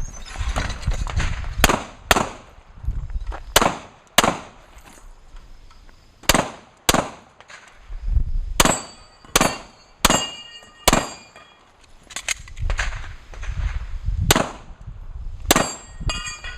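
A semi-automatic handgun fired in a USPSA stage string: about fifteen shots, mostly in quick pairs about half a second apart, with pauses between groups as the shooter moves and transitions. Near the middle, several shots are followed by a metallic ringing from struck steel targets.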